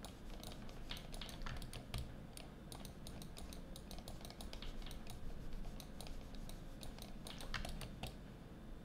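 Computer keys clicking faintly in irregular runs of taps, several a second, stopping shortly before the end.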